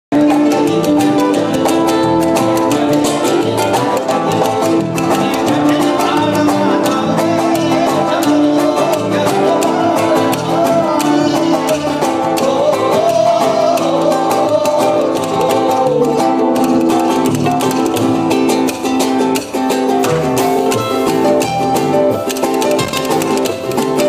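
Live band music: an acoustic-electric guitar played over a steady rhythm, with a man's voice singing a wavering, gliding melody into a microphone through the middle stretch.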